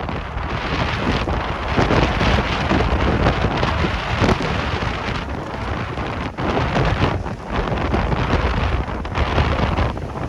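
Strong gusting wind buffeting the microphone, a dense rushing roar that swells and dips.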